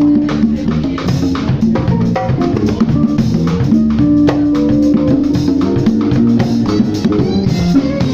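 Small band playing live: drum kit with cymbals, congas struck by hand, and an electric bass playing held low notes under a busy groove.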